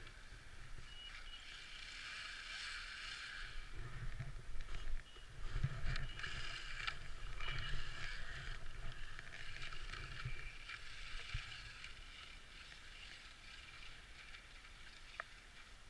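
Axial Yeti Score RC trophy truck's electric motor and drivetrain whining as it drives through snow, with low thumps underneath. The whine swells in the middle and fades toward the end.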